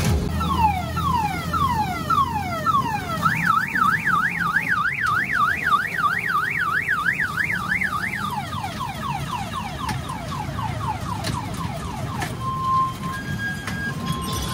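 Electronic car-alarm siren cycling through its tones: falling whoops about two a second, then a fast up-and-down warble, then quicker falling chirps, then short steady beeps near the end.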